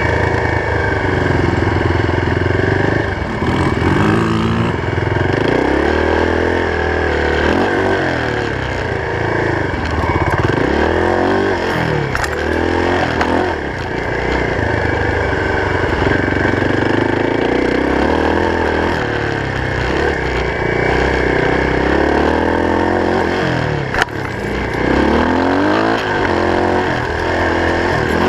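Off-road vehicle engine running under varying throttle, its revs rising and falling every few seconds while riding a dirt trail. A single sharp knock about 24 seconds in.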